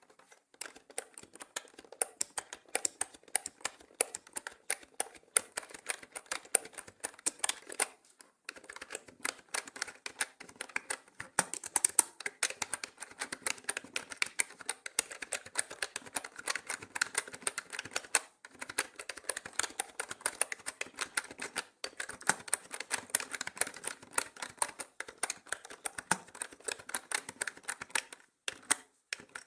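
Mechanical keyboard being typed on in a steady, fast run of clicky keystrokes, with short pauses now and then.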